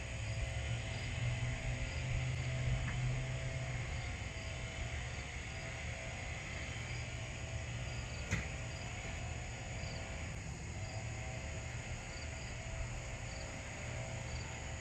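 Quiet outdoor ambience: a steady low hum with faint, small insect chirps repeating now and then, and a single light click about eight seconds in.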